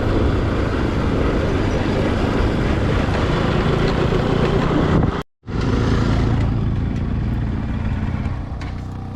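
Motorcycle on the move: its engine is running under a steady rush of wind and road noise. The sound drops out completely for a moment about five seconds in, and it gets quieter in the last second or so.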